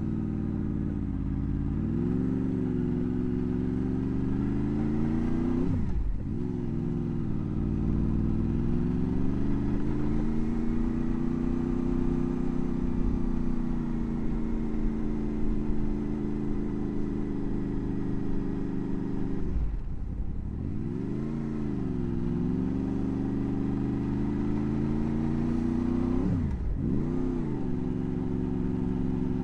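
Motorcycle engine under way, its pitch rising and falling with the throttle and dropping sharply then climbing back three times, as at gear changes.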